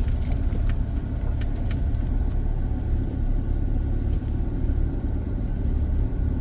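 Car driving along a road, heard from inside: a steady low rumble of engine and tyres, with a few faint ticks in the first two seconds.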